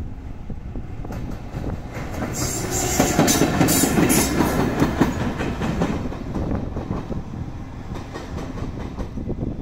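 JR Freight EF210 electric locomotive running light past at speed, its wheels clattering over the rail joints. It is loudest about three to five seconds in as it goes by, then fades as it moves away.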